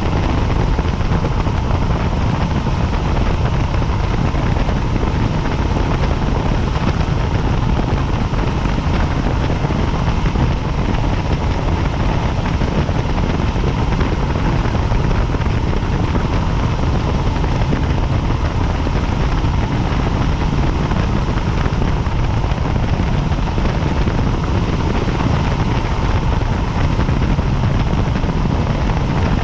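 Helicopter in flight: steady, fast rotor beating with a constant engine whine, holding the same level throughout.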